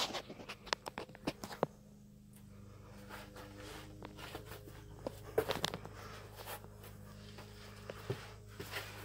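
Scuffing, shuffling and light knocks of someone moving about in a crawlspace, with a cluster of clicks in the first two seconds and a few more later, over a steady low hum.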